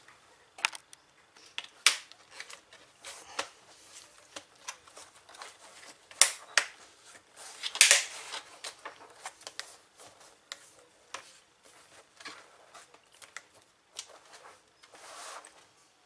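Plastic keyboard top cover of an Acer Aspire E15 laptop being fitted and pressed down onto the base: irregular sharp clicks and snaps as its edges seat, with two louder scraping rattles around six and eight seconds in.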